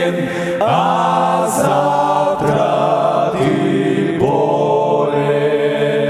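Male vocal ensemble singing in close harmony, drawing out a few long held chords, with a new chord entering about half a second in, again around two and a half seconds, and again around four seconds.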